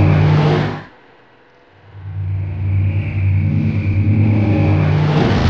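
Steady low drone from the soundtrack, cutting out about a second in and coming back about a second later.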